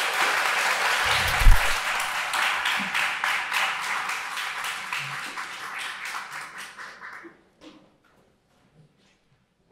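Audience applauding, a dense patter of many hands that tapers off and stops about seven seconds in. A single low thump sounds about a second and a half in.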